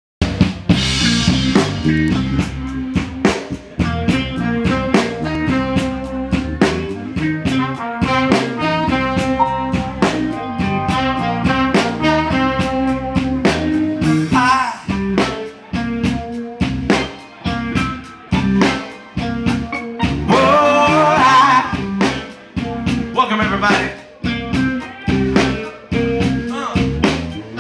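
Live band playing an instrumental groove: saxophone lead over keyboard, electric guitar, bass and a drum kit keeping a steady beat.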